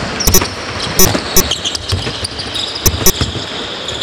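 Basketball dribbled on a hardwood court, bouncing repeatedly at an uneven pace, roughly twice a second.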